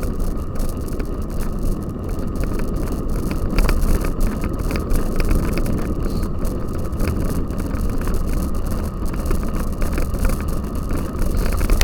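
Cyclocross bike ridden over rough ground: a steady low wind rumble on the microphone, with frequent small clicks and rattles.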